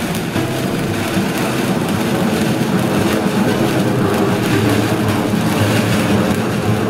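TNT Feliz Fountain firework burning, spraying sparks with a steady rushing noise.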